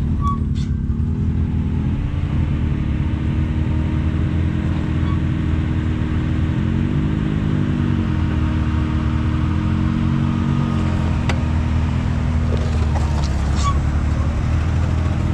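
Can-Am Maverick X3 side-by-side's three-cylinder turbo engine running at low revs as it crawls over roots and rock. Its pitch rises and falls gently a couple of times midway, and there is a single sharp click shortly after.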